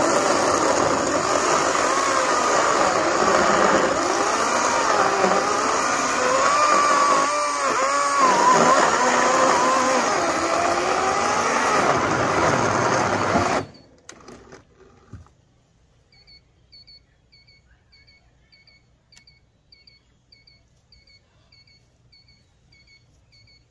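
Greenworks 80V cordless brushless chainsaw cutting through oak slabs. Its motor whine dips and recovers in pitch as the chain bites, then stops abruptly a little over halfway through. Faint high chirps then repeat about twice a second.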